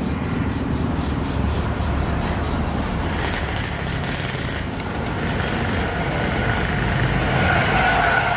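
Motor vehicle engine noise: a steady low rumble from traffic, growing louder near the end as a vehicle comes closer.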